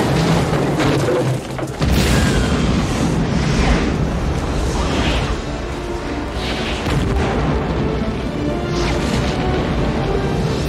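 Film sound effects of a volcanic eruption: a deep, continuous rumbling boom with rushing sweeps every second or two, mixed with film score music.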